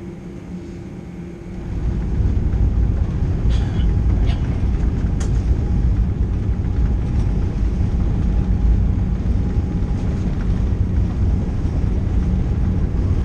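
Inside an airliner cabin at takeoff: the jet engines spool up about two seconds in, and a loud, steady low rumble of engines and runway fills the cabin.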